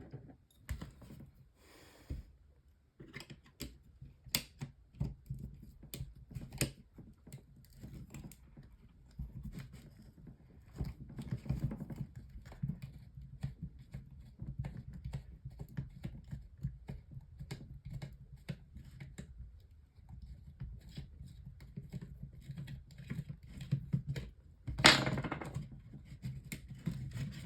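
Irregular clicks, taps and rattles of small plastic parts being handled as a PC cooling fan is worked loose from a mini fan heater's housing, over a faint low hum. One louder, longer clatter comes near the end.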